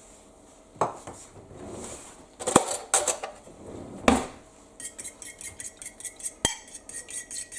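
Cutlery and dishes knocking against a bowl a few times, then from about the middle a utensil beating eggs and milk in the bowl, with quick, even clinks at about five or six a second.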